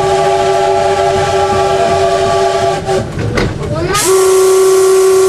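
Electric train's whistle sounding a long blast that stops about three seconds in, then a second, louder blast about a second later, over the train's running noise.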